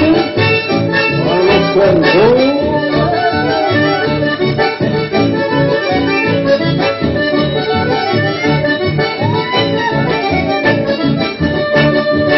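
Accordion-led folk dance music with a steady, pulsing bass beat underneath; instrumental, with no singing.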